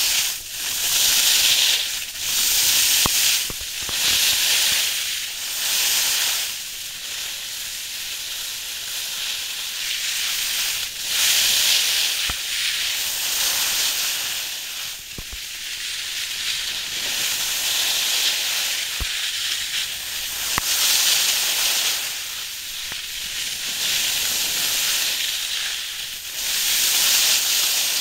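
Skis sliding and scraping over packed snow: a steady hiss that swells and fades every second or two.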